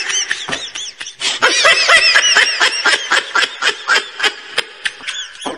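High-pitched laughter in quick repeated squeals, several a second, with a brief gap about a second in.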